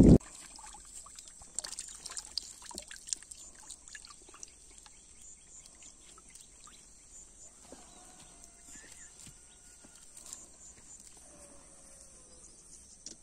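Faint trickling and dripping water with a few small splashes in the first few seconds, from hands squeezing crushed Alangium leaves into a muddy puddle.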